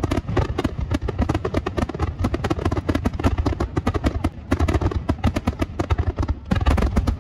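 Fireworks going off in a rapid, dense barrage of overlapping bursts and crackles.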